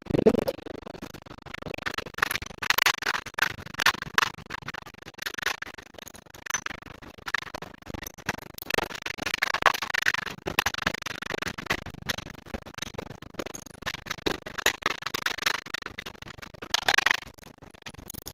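Irregular clicks, knocks and scraping of metal engine parts and tools being handled, with no steady machine sound.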